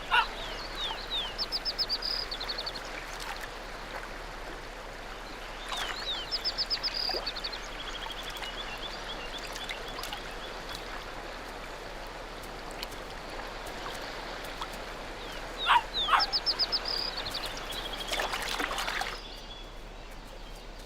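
Outdoor ambience with a songbird repeating a short, rapid trilled phrase three times. Around 16 s in come a few short, high squeaky calls, the loudest sounds in the stretch.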